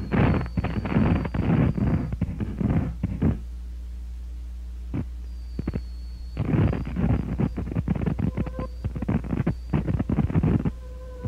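Experimental tape collage of radio and found-sound material: dense, irregular bursts of distorted noise, strongest in the low range, over a steady low electrical hum. The bursts break off for about three seconds in the middle, leaving only the hum, then start again.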